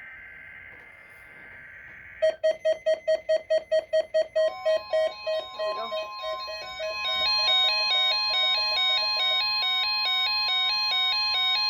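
NOAA Weather Radio weekly test alerting heard through a receiver. First comes the tail of a SAME digital header burst (warbling data tones). At about two seconds a rapid run of electronic beeps starts. Then, about four and a half seconds in, the steady weather radio warning alarm tone begins, with a stepped electronic beeping tune over it.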